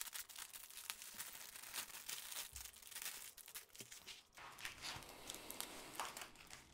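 Clear plastic packaging crinkling faintly, with small crackles, as hands unroll and smooth out a strip of sealed bags of diamond-painting drills.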